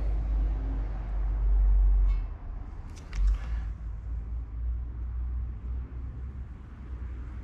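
Steady low rumble with a couple of brief metallic clicks about two and three seconds in, as an engine's crankshaft is turned by hand with a socket bar.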